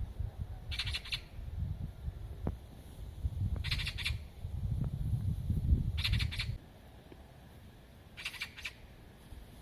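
A bird giving a short, harsh, rasping call four times, about every two and a half seconds. Under it there is a low rumbling noise that drops away about two-thirds of the way through.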